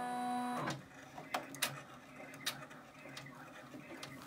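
Brother PR655 six-needle embroidery machine starting a stitch-out: a steady whine that stops under a second in, then the machine stitching at speed with a quieter running sound and scattered light ticks.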